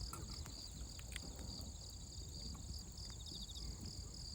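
Crickets chirping steadily, about four pulses a second, with a few faint crackles from a wood campfire.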